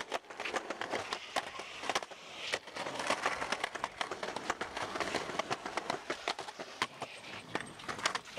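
Skateboard wheels rolling over rough, gritty street pavement, a steady grinding rumble with many sharp clacks and knocks from the board and trucks.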